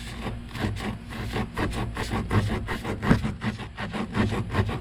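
Tire plug kit's spiral reamer being worked in and out of a puncture hole in a truck tire's tread, a rapid, regular rasping of steel against rubber, cleaning and roughening the hole to take a plug.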